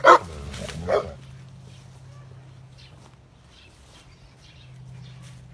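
A dog barks twice, a loud sharp bark and a second one about a second later.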